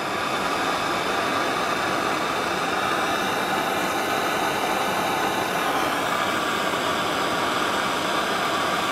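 Hand-held gas torch burning with a steady hiss while heating a steel scraper blade red hot. The flame cuts off suddenly at the end.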